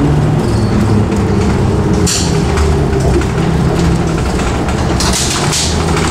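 Detroit Diesel 6V92TA two-stroke V6 of an MCI Classic coach running as the coach drives, heard from inside the coach as a steady engine drone. A short burst of hiss about two seconds in, and a longer one near the end.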